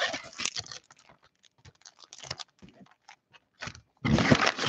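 Hands tearing open a cardboard mega box of trading cards and handling the foil card packs inside. A burst of crinkling and tearing comes first, then scattered small clicks and rustles, then more crinkling about four seconds in.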